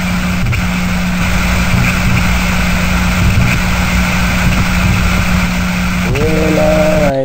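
A loud, steady rush of noise over a low hum, which cuts off suddenly near the end. Shortly before it stops, a voice starts singing a slow devotional folk song and holds its notes.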